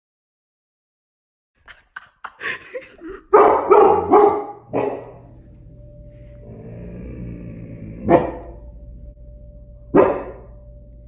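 A puppy barking: a quick run of barks beginning about two seconds in, then two single barks later over a steady low hum.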